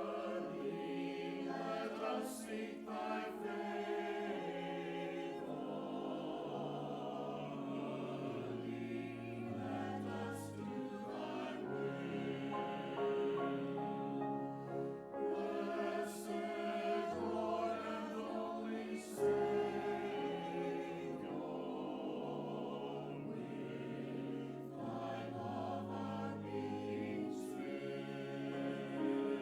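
Church choir singing in many-voiced, sustained chords.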